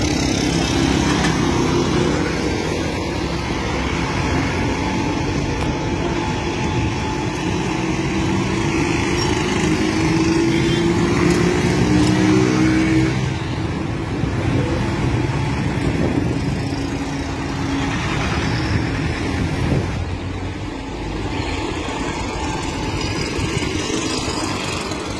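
Street traffic, with small motor scooters and motorbikes riding past close by; one engine's pitch rises as it passes, about ten seconds in.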